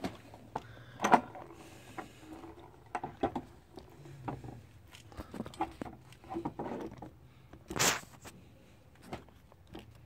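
Handling noises: scattered light knocks and scrapes, with one louder, brief scuffing burst a little before the eight-second mark.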